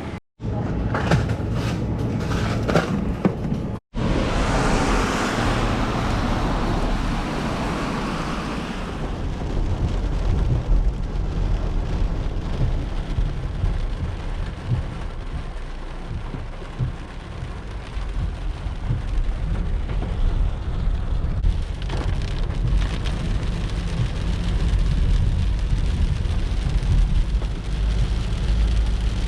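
Typhoon wind buffeting the microphone in a heavy, uneven rumble, with the hiss of driving rain; the sound drops out briefly twice in the first few seconds.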